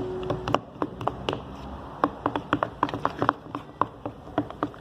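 Glue slime being stirred: sticky clicks and squelches in an irregular run.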